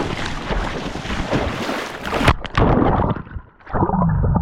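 Water splashing and sloshing with wind buffeting the microphone; about two seconds in, the sound suddenly turns muffled, as if the microphone has gone under the water.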